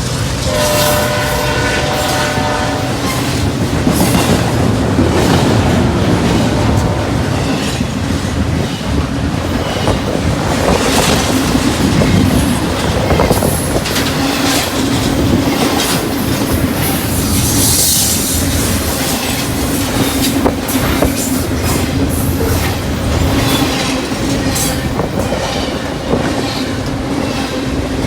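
A locomotive air horn sounds a chord of several notes for about two seconds, then a CSX freight train rolls past, its wheels clacking steadily over the rail joints, with a short high wheel squeal about two-thirds of the way through.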